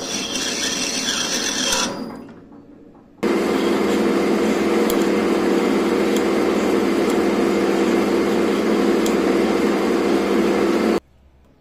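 Homemade lathe cutting a thread on a brass pipe: a steady scraping from the threading tool that dies away about two seconds in. From about three seconds in the lathe spins with a steady hum while a hand-held file rubs on the fresh thread to deburr it, cutting off suddenly near the end.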